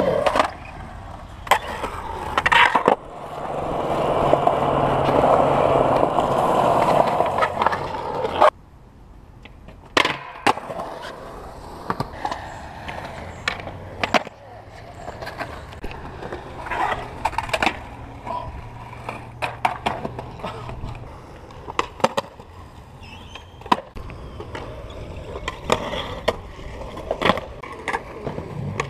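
Skateboard ridden on concrete: urethane wheels rolling, loud for several seconds in the first third and then cutting off, with many sharp clacks as the board strikes the concrete on tricks and landings.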